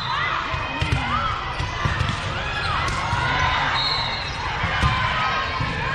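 Echoing gymnasium sound of balls bouncing and thudding on the court floor several times, over a background babble of spectators' voices.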